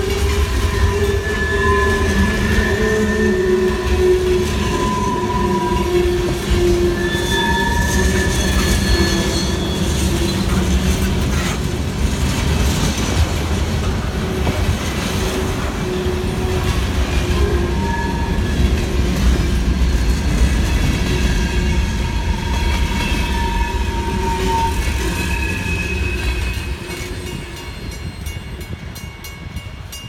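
CN freight train's cars rolling past: a steady low rumble of wheels on rail, with wavering high-pitched wheel squeals coming and going over it. The rumble falls away near the end.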